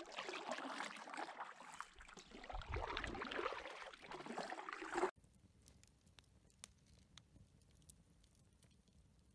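Kayak paddle blades dipping and pulling through lake water, splashing and dripping, for about five seconds. Then a sudden cut to a wood campfire, quiet, with sparse faint crackles and pops.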